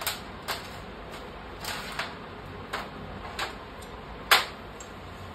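Irregular light metallic clicks and taps from small engine hardware being handled, about eight in all, with one sharper knock a little over four seconds in.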